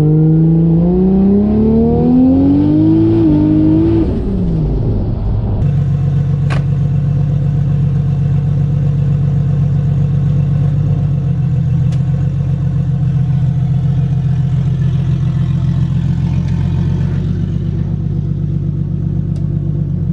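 Turbocharged 1JZ inline-six in a Fox Body Mustang accelerating, its pitch rising steadily for about four seconds before it drops away; after that it runs steadily at low revs, with a single click about six seconds in.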